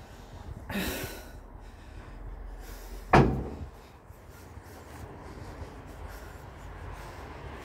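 One sharp, loud thump about three seconds in, over a low steady outdoor rumble, with a short rustle about a second in.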